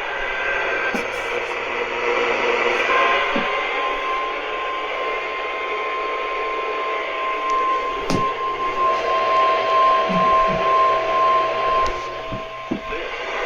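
NOAA Weather Radio broadcast received over radio with a hiss of static. About three seconds in, the steady 1050 Hz warning alarm tone of the required weekly test comes on and holds for about ten seconds, with a fainter lower steady tone under it from about five seconds in.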